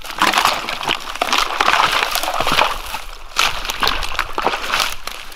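Water sloshing and splashing, with sticks and brush rustling, in uneven bursts as a trapped beaver in a 330 body-grip trap is hauled by hand out of a flooded bank hole.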